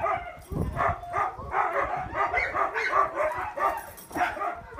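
A yard full of sled dogs barking, yipping and whining over one another in a continuous chorus of excited calls, the clamour of dogs eager to be picked to pull the training cart.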